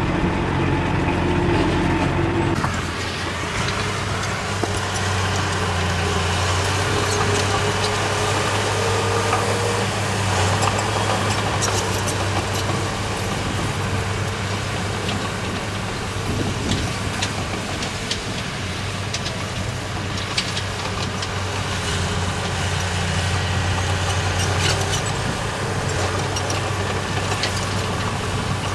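Heavy diesel earthmoving machinery running steadily, with scattered metallic clanks and rattles; the engine note shifts about two seconds in.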